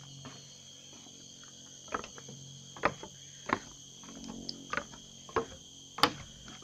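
A steady, high-pitched chorus of tropical forest insects. From about two seconds in, about six sharp steps, roughly one every half second to second, sound much louder over it.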